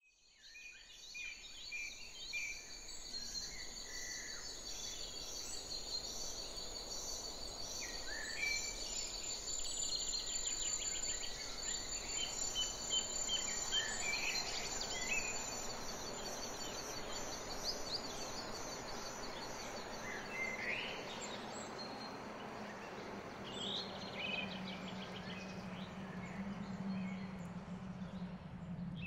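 Outdoor waterside ambience: a steady high insect trill runs throughout, with birds giving scattered short chirps and whistles. A faint low hum comes up in the last third. The sound fades in over the first couple of seconds.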